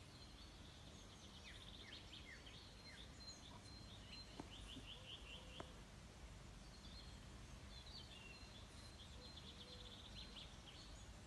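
Faint outdoor ambience: small birds singing in quick trills and short chirps over a low steady rumble, with two faint clicks near the middle.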